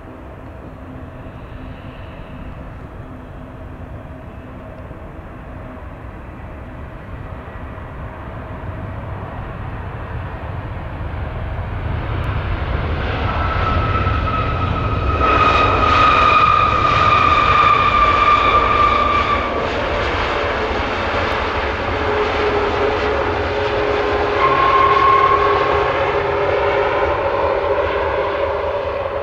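Boeing 737 MAX 8 jet engines on the landing rollout just after touchdown. The engine noise grows louder over the first half as the jet nears, with a high whine that sinks slightly in pitch, and a second brief whine about 25 seconds in.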